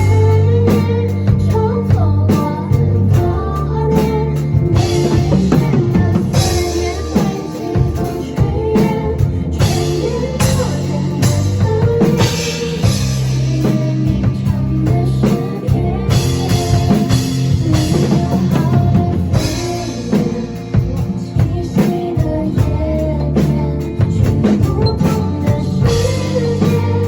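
Mandarin pop song with a drum kit played along to it: a steady beat with cymbal crashes over bass, guitar and singing.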